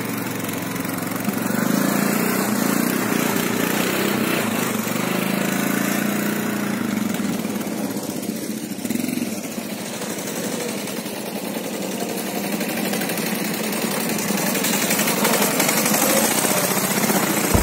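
Engines of a quad bike and a Ural flat-twin motorcycle running as they ride a dirt track, the pitch rising and falling with the throttle, with a brief drop in engine sound about halfway through.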